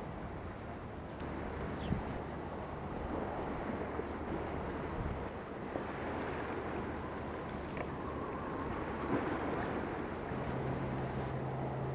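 Low, steady drone of distant ship engines carrying across open water, over wind on the microphone and small waves lapping. A second, slightly higher engine hum joins near the end.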